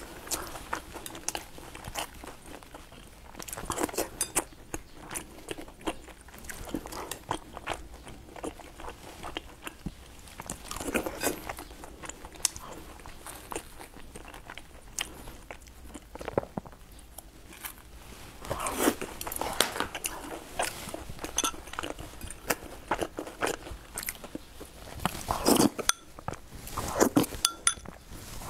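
Close-up chewing and biting of taro and sweet potato balls: crunching and wet mouth sounds in bursts with short pauses, mixed with sharp clicks.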